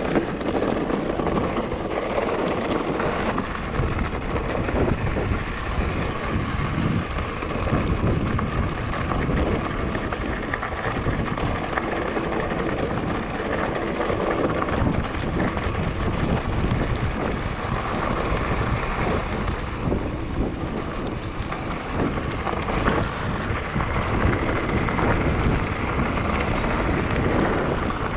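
Wind rushing over the microphone, with the continuous rattle and crunch of a mountain bike's tyres and frame over a rough, stony track on a fast downhill.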